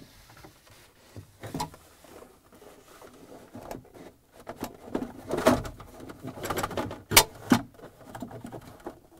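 Plastic refrigerator evaporator fan cover being handled and pressed into place against the freezer's rear wall: rustling and creaking plastic with scattered clicks, and two sharp clicks about seven seconds in.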